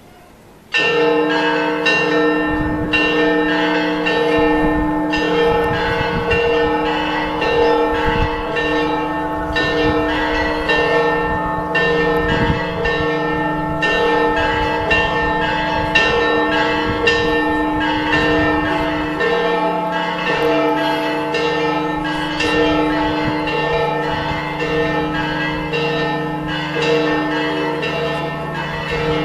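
Church bells pealing: several bells struck again and again, their strikes overlapping into one continuous, loud ringing that starts suddenly about a second in.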